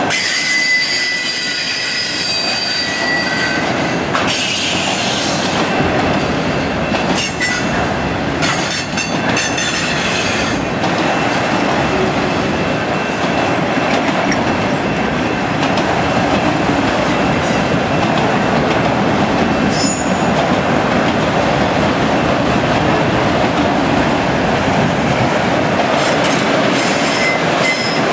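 Autorack freight cars of a Canadian National train rolling past close by: a steady rumble of steel wheels on rail. Thin, high wheel squeals come in the first few seconds, and rattling clicks come over roughly the first ten seconds and again near the end.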